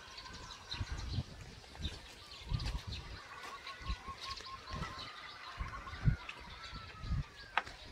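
Birds chirping and calling, with a run of short quick repeated notes in the middle, over irregular low thumps, the loudest about six seconds in.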